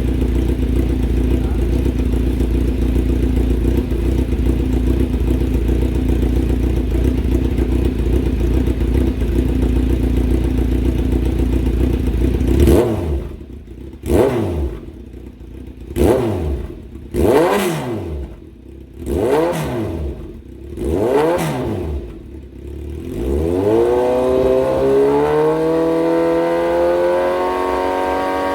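Kawasaki Z900 SE inline-four motorcycle engine with an aftermarket exhaust, idling steadily. About halfway through it is blipped sharply several times, about every one to two seconds, with the revs falling back to idle after each blip. Near the end it is held at a steady rev that climbs slowly.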